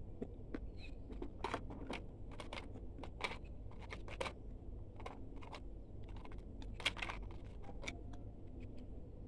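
Dry multani mitti (fuller's earth clay) being chewed close to the microphone: irregular crisp crunches and crackles, a few of them sharper and louder, over a steady low hum.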